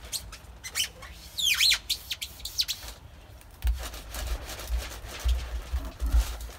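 6 mm adhesive-backed foam being pressed and rubbed by hand onto a van's sheet-metal roof, giving short high squeaks and scratchy rubbing in the first few seconds. Then a small hand roller presses the foam down, with dull thumps.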